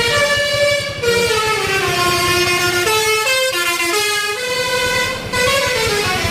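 Telolet bus horn playing a melody: a run of loud, many-toned horn notes that slide slowly down in pitch, break into short stepped notes about halfway through, then rise and drop again near the end.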